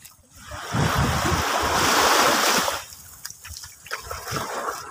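Water poured and splashing over a large fish being cleaned, for about two seconds, then starting again near the end, with a few small knocks in between.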